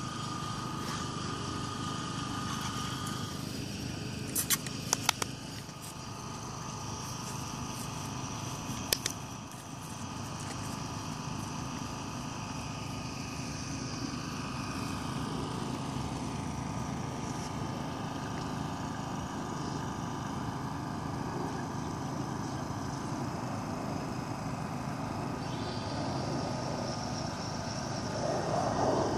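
Steady low drone of distant engines, with a few sharp clicks about four to five seconds in and once more near nine seconds.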